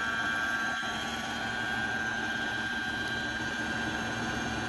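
Brother HC1850 computerized sewing machine's motor running steadily with a high whine, winding a bobbin on its automatic bobbin winder.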